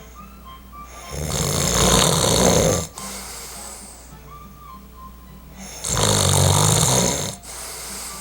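A man snoring in his sleep: two long, loud snores of about one and a half to two seconds each, roughly four seconds apart, each cutting off sharply.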